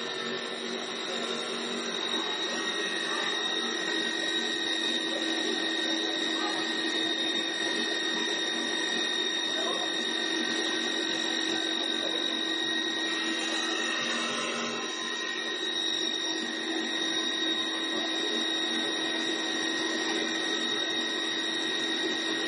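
A 4-axis CNC wood lathe running and cutting a spinning wooden blank into a turned post. Its motors give a steady hum with a constant high whine, mixed with the hiss of the cutters shaving wood.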